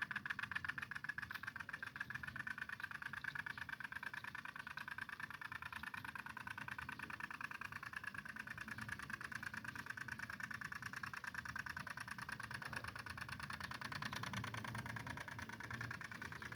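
Two-stroke engine of a G1000 mini tiller running steadily, with a fast, even firing buzz.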